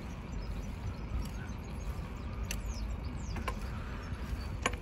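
Steady low rumble of wind on the microphone and tyres rolling on asphalt during a bicycle ride, with a few sharp clicks in the second half, the loudest near the end, and faint high chirps.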